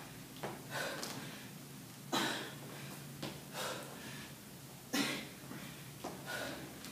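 A woman breathing hard in short, sharp exhales, one every second or so, from the effort of a set of alternating lunges.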